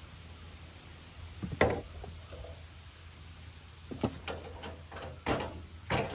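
A handful of sharp wooden knocks and clunks from handling a red oak log and its wooden wedges on a bandsaw mill's bed: one loud knock about one and a half seconds in, then a cluster of four between four and six seconds in, over a faint low hum.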